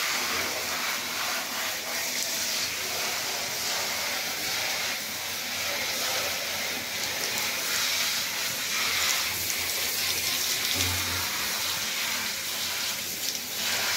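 Handheld shower head spraying warm water over a Labrador retriever's coat and into a bathtub, a steady hiss of running spray.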